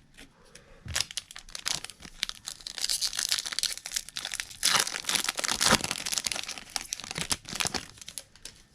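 A baseball card pack wrapper being torn open and crinkled, with dense crackling from about a second in, loudest around the middle.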